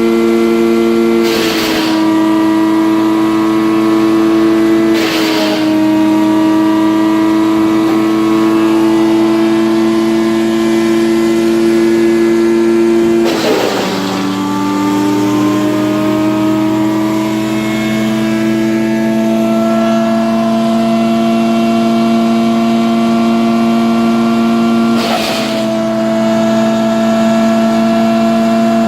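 Asplund chuck-and-duck wood chipper running, with four short crunching bursts as material goes through the disc. The engine pitch drops with each bite and then slowly climbs back as it recovers from the load.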